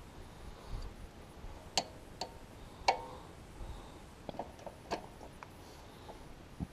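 Scattered sharp metal clicks and clinks from a socket wrench working the nut on a loader cylinder's pivot pin. The loudest comes about three seconds in and rings briefly; a few quicker clicks follow near the middle.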